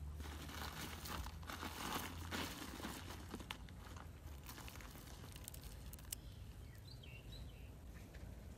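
Dry rustling and crinkling as a hand handles a pile of crispy fried crickets and the banana leaves under them, busiest in the first three seconds, then a few scattered light clicks.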